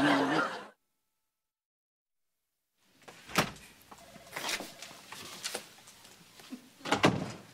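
A man's singing voice fades out in the first second, then there are about two seconds of silence. A wooden office door is opened with a clunk about three and a half seconds in, followed by light knocks and typing, and another thud near the end.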